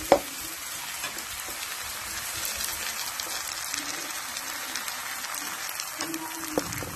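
Pancake batter sizzling in butter in a non-stick frying pan: a steady, fine crackling hiss. A sharp knock comes right at the start, and a smaller one near the end.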